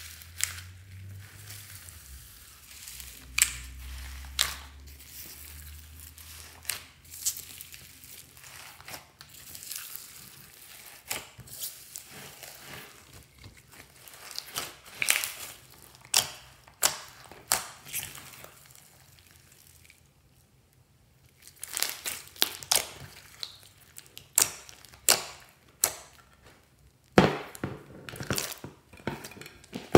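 Hands kneading and squeezing glossy slime packed with foam beads, giving a string of sharp, irregular pops and clicks as trapped air pockets burst and the beads crunch. The pops pause briefly about two-thirds of the way through, then come back closer together and louder.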